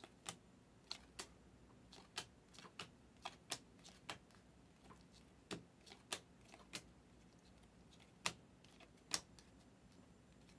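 Glossy basketball trading cards being flipped through by hand one at a time, each card sliding off the stack with a faint, sharp click; the clicks come irregularly, about one or two a second.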